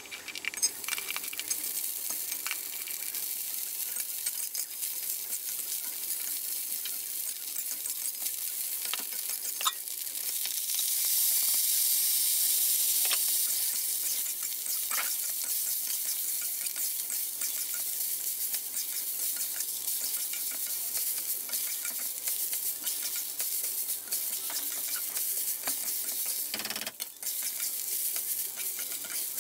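Chopped Chinese sausage and raw glutinous rice sizzling in a steel wok in the sausage's own rendered fat, stirred and tossed with a metal spatula that scrapes and clicks against the pan. The sizzle swells for a few seconds about ten seconds in.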